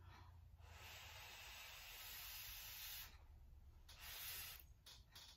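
Faint breath blowing on a chopstick-load of hot instant noodles to cool them: one long blow, then a shorter one about four seconds in.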